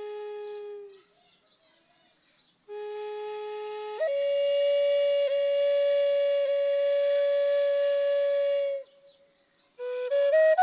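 Solo flute playing long held notes: a lower note sounded twice with a short pause between, then a step up to a higher note held about five seconds and lightly re-tongued twice, before a pause and a short rising phrase at the very end.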